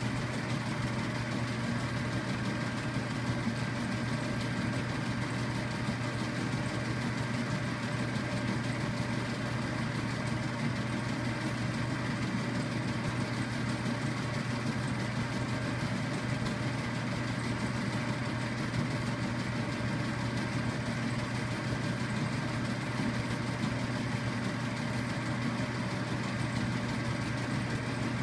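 Polaroid Polarvision player running: a steady, even motor hum with a low drone and a few fainter higher tones, unchanging throughout.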